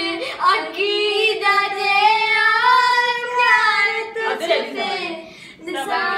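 A young person singing unaccompanied, holding one long, wavering note for about three seconds in the middle, with shorter sung phrases before and after.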